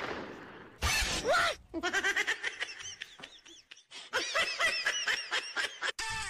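A loud rushing burst at the start and another about a second in, then quick, very high-pitched giggling: a rapid string of short laughs bobbing up and down in pitch, cut off suddenly near the end.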